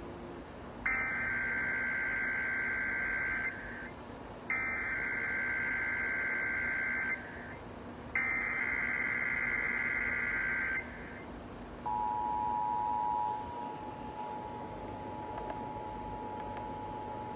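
Emergency Alert System SAME header: three buzzing bursts of digital data tones, each about two and a half seconds long with a short gap between. About twelve seconds in, the steady two-tone EAS attention signal begins, announcing the voice message of a required monthly test.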